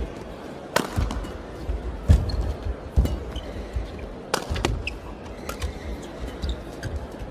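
Badminton rally: sharp racket hits on the shuttlecock about once a second, with thuds of the players' footwork on the court between them.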